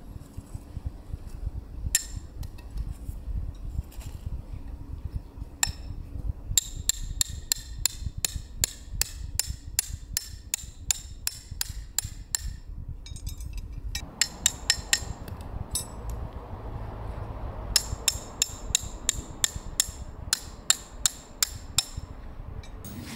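Hammer driving tent pegs into the ground: runs of quick, sharp strikes, about four a second, broken by short pauses.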